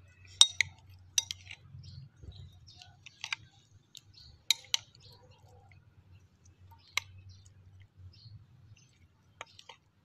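Metal spoon knocking and scraping against a glass bowl while eating, with several sharp, irregularly spaced clinks.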